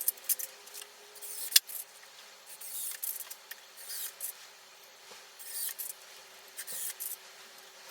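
Hand work on the summer seat's new wooden supports: irregular short scraping and rubbing strokes broken by a few sharp clicks, the loudest click about one and a half seconds in.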